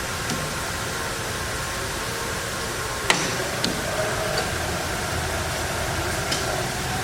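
Hardinge HC chucker lathe running with a steady mechanical hum and hiss. A sharp click comes about three seconds in, followed by a few lighter clicks.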